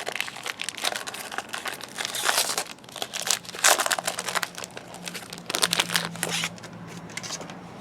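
Trading card pack wrapper being crinkled and torn open by hand, in irregular crackling bursts, loudest about two and a half and three and a half seconds in.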